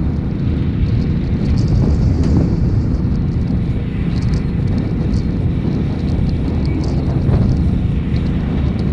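Brush truck's engine running as the truck drives over rough pasture, a steady heavy rumble with many short high ticks scattered over it.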